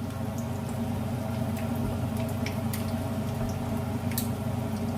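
Breaded chicken frying in shallow cooking oil: a steady sizzle with scattered sharp pops of spitting oil, over a steady low hum.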